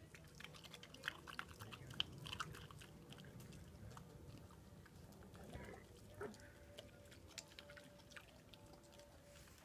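Wild boar chewing fallen apricots: a faint run of quick wet clicks, densest in the first few seconds, then scattered.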